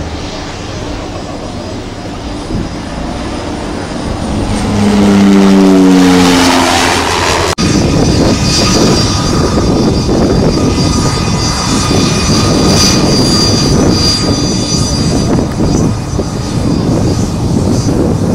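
Aircraft passing low overhead on approach: its engine note swells and drops in pitch as it goes over, loudest about six seconds in. It breaks off abruptly, and a loud steady aircraft engine noise with a thin high whine takes over.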